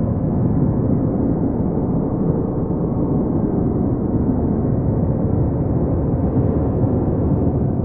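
Sonified stellar oscillations from NASA Kepler data, for a star about twice the size of the Sun: a steady low rumble with a few faint held tones in it.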